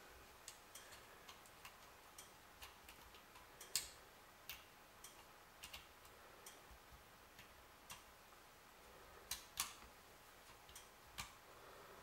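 Faint, irregular small clicks of a hex key turning an M3 grub screw up through a 3D-printed plastic arm into a brushless motor's base, with a few sharper clicks among them.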